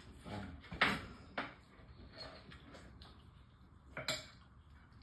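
A few faint, short clicks and knocks: one a little under a second in, another about half a second later, and a sharper one about four seconds in.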